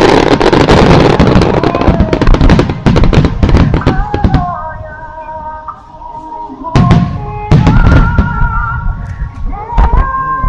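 Aerial firework shells bursting in rapid volleys over music. The bursts ease off for about two seconds midway while the music carries on, then return in a dense barrage.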